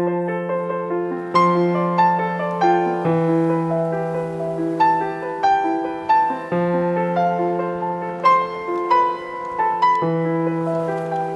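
Background piano music: a melody of struck notes over a low note that is struck again every few seconds.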